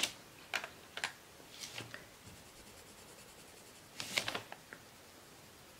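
Rembrandt coloured pencil scratching on paper in short scribbles: a few brief strokes in the first two seconds, then a denser burst of scribbling about four seconds in.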